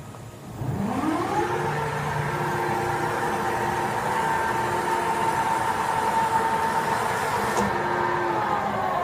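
Spindle drive of a 1993 Chevalier FCL 24x80 CNC flat-bed lathe spinning up with a rising whine starting about half a second in. It then runs at a steady speed with a motor whine and begins to slow near the end.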